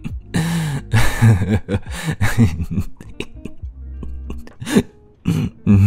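Lofi background music, with a man's breathy vocal sounds but no words over it.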